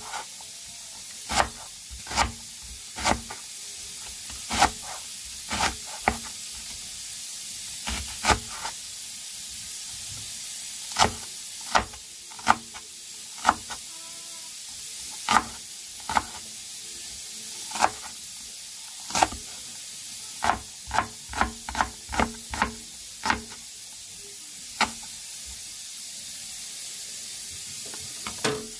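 Chef's knife chopping leeks on a wooden cutting board: sharp knocks of the blade hitting the board at an irregular pace, with a quick run of about eight strokes about two-thirds of the way through. A steady hiss sits underneath.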